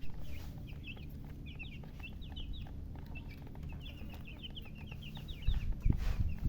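Baby chicks peeping: many short high chirps in quick runs, going on through the whole stretch. Low rumbling thumps rise under them near the end.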